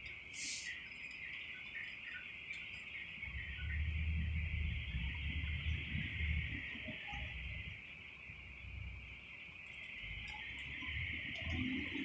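Insects droning in a steady high chorus, with a low rumble swelling for a few seconds in the middle and again near the end.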